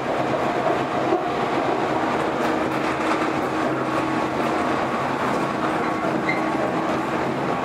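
JR 115 series electric train running at a steady speed, heard from inside the car: even rolling and rail noise with a steady hum from the traction motors.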